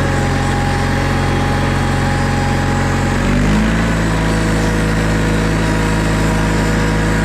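Tractor engine running steadily; its note shifts about three seconds in, with a brief rise in pitch, and then it runs on at the new steady note.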